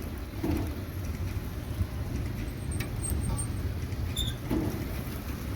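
Steady low background rumble, with faint voices briefly twice and a few small clicks.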